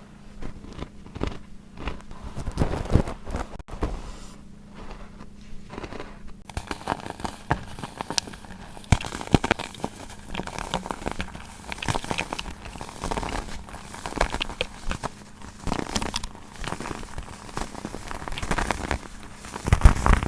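Baking soda being crushed and crumbled, with many crisp, irregular crunches and crackles in quick succession.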